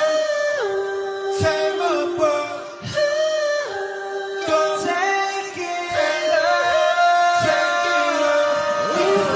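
Male pop voices singing a cappella in close harmony, holding long notes and sliding smoothly between pitches, with no instruments.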